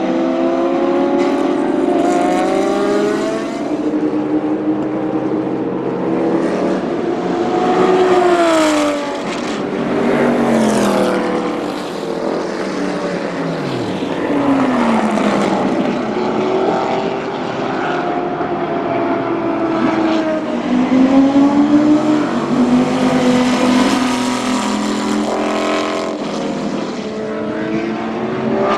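Porsche 917 K racing cars' flat-twelve engines at full race speed, pitch climbing as they accelerate, with several cars going past, the pitch sweeping down sharply as each passes, notably about eight and fourteen seconds in.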